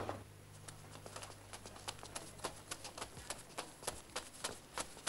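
A child's quick running footsteps, about three to four steps a second, starting about a second in after a single knock.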